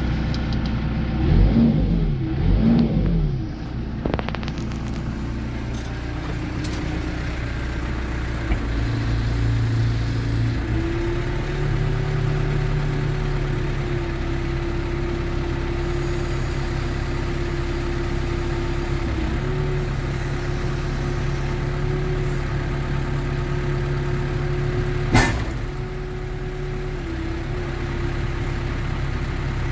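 Diesel engine of a 2007 New Holland B95LR backhoe loader running. It is revved up and down twice in quick succession near the start, then runs at a steady speed that steps up about eleven seconds in. There is a single sharp knock about twenty-five seconds in.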